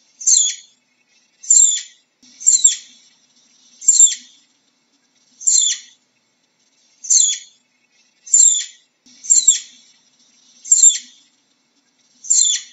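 Flying squirrel giving a series of about ten short, high-pitched chirps, each falling in pitch, repeated at irregular intervals of roughly one to one and a half seconds.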